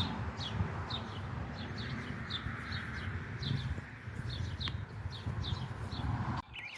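Small birds chirping repeatedly outdoors, short high chirps several times a second, over a low rumbling noise that cuts off near the end.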